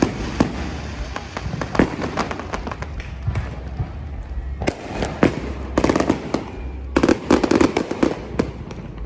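Fireworks going off: a steady low rumble with repeated sharp bangs, and two dense runs of rapid crackling pops, about six seconds in and again from about seven to eight seconds in.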